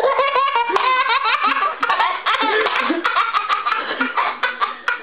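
Hearty laughter from several voices at once, overlapping in quick bursts, with a few sharp clicks among it.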